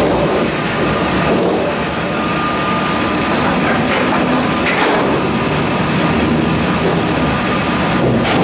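Mebor HTZ 1200 PLUS horizontal band sawmill running: a loud, steady mechanical noise with a faint high tone running through it and a few knocks.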